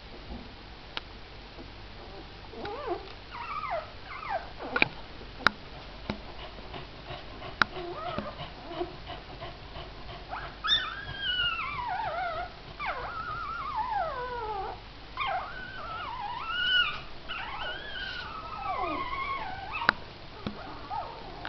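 Newborn puppies whimpering and squeaking in a string of high, mostly falling cries that come thick and fast through the second half. A few sharp clicks are heard in the first half.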